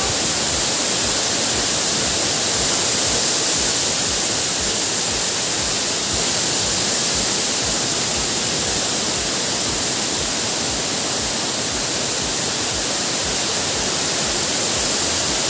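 Waterfall in monsoon flood, a steady loud rush of falling water.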